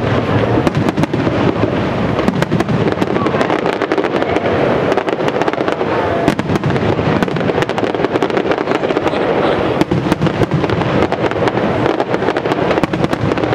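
Professional aerial fireworks barrage: many shells bursting in rapid succession, a continuous loud din studded with sharp crackles and pops.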